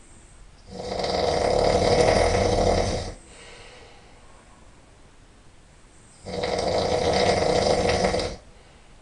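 A person snoring really loud: two long snores about five seconds apart, each lasting a couple of seconds, with a fluttering rattle through each one.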